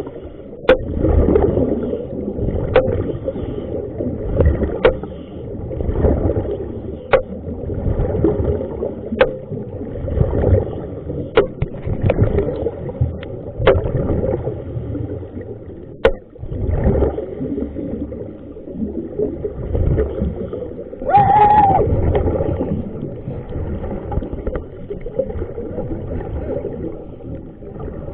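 Water sloshing and gurgling in uneven surges, with sharp clicks about every two seconds through the first half and a short tone about two-thirds of the way in.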